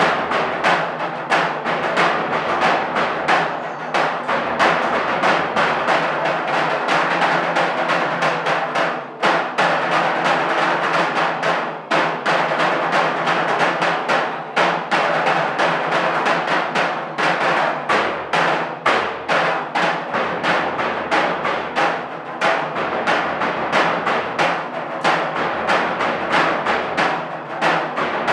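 A drum ensemble playing a fast, continuous beat of dense, rapid strokes.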